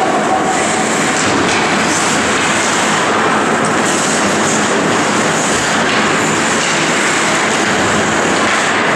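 Ice hockey play in an indoor rink: a steady, loud din of skates on the ice, sticks and the hall, with brief scrapes now and then.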